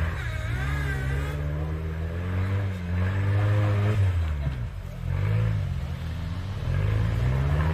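An off-road competition vehicle's engine is being worked hard, its revs climbing and dropping again about four times as it is driven under load.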